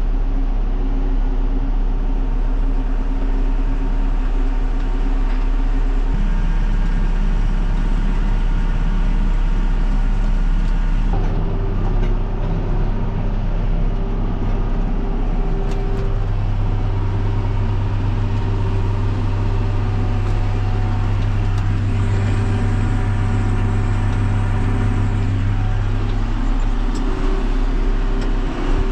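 John Deere tractor engine running steadily under load while baling hay, with its drone shifting in pitch a few times as the load changes.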